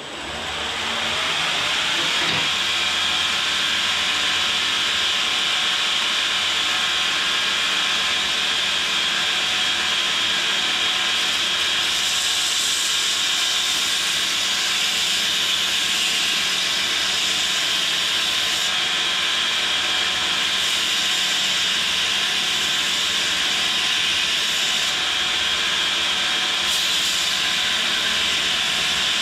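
Belt grinder with a 120-grit ceramic belt spinning up, then running steadily with a hiss and a faint whine as the bevels of a hardened steel kiridashi blade are ground against the belt. The hiss turns harsher from about halfway through.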